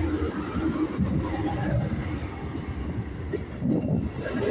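Amtrak Superliner double-deck passenger cars of the California Zephyr rolling past, a steady rumble of wheels on the rails.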